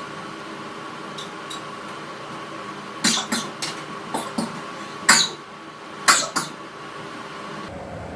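A person coughing in short forced bursts, about eight coughs in clusters, the loudest about five and six seconds in, while trying to bring on a sneeze. A steady hum runs underneath and cuts out near the end.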